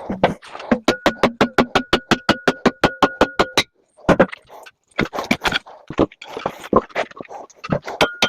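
Metal being struck rapidly and repeatedly with a hammer as a microwave is broken apart for scrap, about eight blows a second with a ringing metallic note, in runs broken by short pauses.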